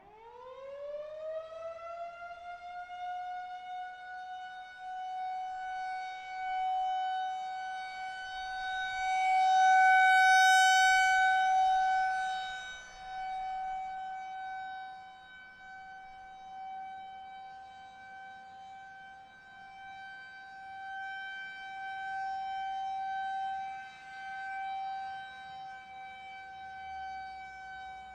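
Federal Signal 2001-130 rotating electromechanical outdoor warning siren sounding a steady full-alert tone. It winds up quickly at the start to a held single pitch, then swells and fades in loudness as the rotating horn sweeps past and away.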